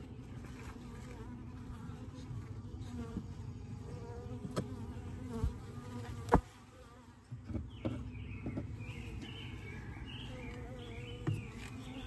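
Honeybees buzzing in a steady hum from an open hive colony. A few sharp clicks break in, the loudest about six seconds in.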